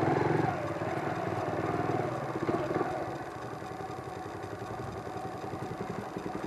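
Motorcycle engine idling steadily, its firing pulses running evenly, a little quieter from about three seconds in.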